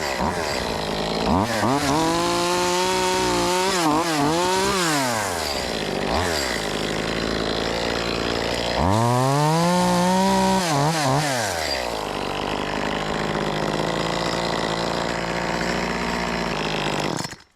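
Two-stroke gas top-handle chainsaw (Echo CS-2511T) running and cutting wood. It revs up and back down twice, then cuts off suddenly near the end.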